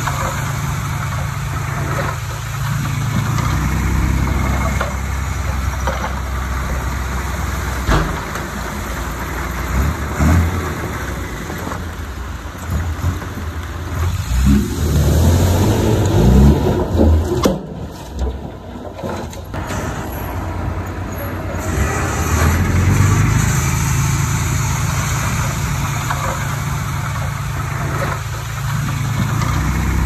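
Heavy diesel engine of a bulldozer at work, the engine note swelling and easing several times as it takes load. There are a few sharp clanks, and a louder, rougher rumble near the middle.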